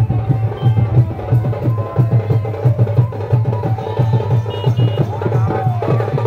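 Traditional folk drums playing a fast, steady beat, with pitched instrument lines above the drumming.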